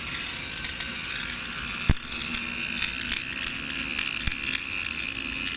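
Automatic pipe welding machine running: a steady hissing, crackling welding arc over a faint electrical hum, with one sharp click about two seconds in.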